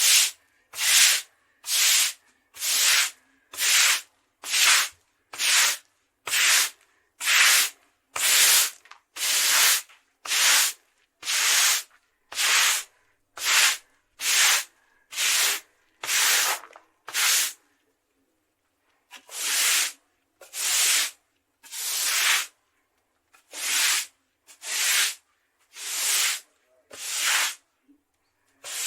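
Concrete being scrubbed in a steady back-and-forth rhythm, each stroke a short rasping scrape, about three strokes every two seconds. The strokes pause for a second or so about two-thirds of the way through, then carry on.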